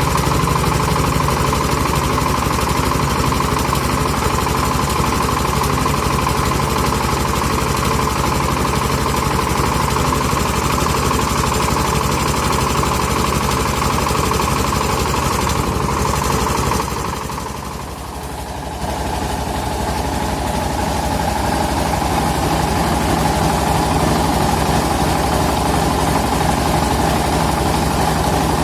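Engine-driven portable rice milling machine running steadily with a constant mechanical drone. The sound drops briefly about two-thirds of the way through, then comes back up to full level.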